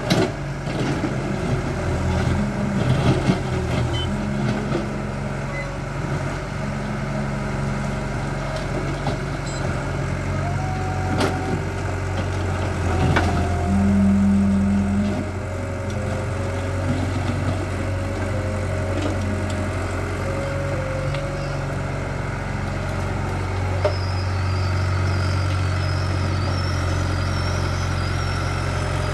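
Caterpillar crawler excavator's diesel engine running steadily, its note rising and falling as the hydraulics are worked. In the first few seconds the bucket knocks and scrapes against broken asphalt rubble.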